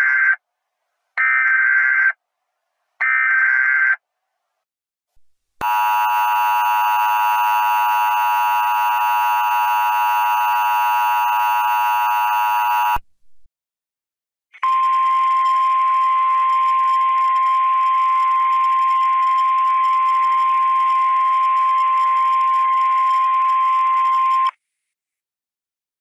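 Emergency Alert System tornado-warning tones. First come three short screeching bursts of SAME header data, about a second each. Then a buzzing alert tone full of overtones runs for about seven seconds, and after a short gap a steady single-pitch weather-radio alert tone holds for about ten seconds.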